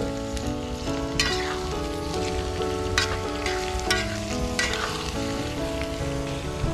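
Squid sizzling as it fries in a pan, with a few sharp knocks of a spatula stirring it. A melody of held notes plays along underneath.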